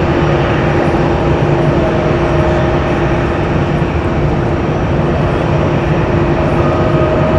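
Jet airliner engines running: a loud, steady rumble with a steady whine, and a higher tone joining near the end.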